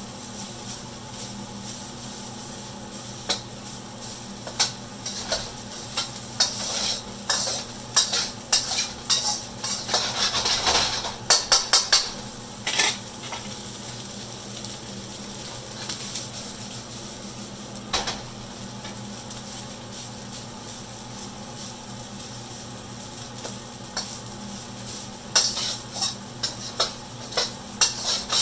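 Rice frying in hot oil in a pan on high heat, sizzling steadily, while a utensil scrapes and clicks against the pan in bouts of stirring, busiest in the middle and again near the end.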